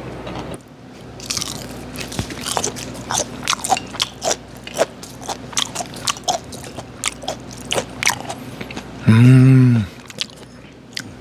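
Close-miked chewing and biting of food at a small handheld microphone, a run of irregular wet crunches and smacks. About nine seconds in, a short loud hummed 'mmm' from a voice.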